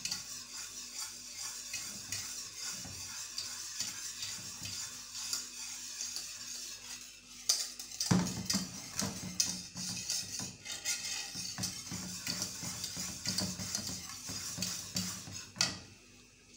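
Wire whisk scraping and clinking against the sides and bottom of an aluminium saucepan in quick, continuous strokes, stirring custard over low heat as it thickens. The strokes get louder and busier about halfway through.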